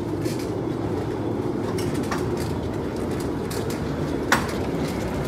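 Hospital stretcher's wheels rolling along a corridor floor: a steady rumble with light rattling, and one sharp click about four seconds in.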